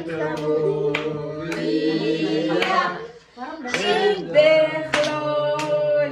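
A small group singing a birthday song together, with hands clapping along in time about twice a second; the singing breaks off briefly a little past halfway, then picks up again.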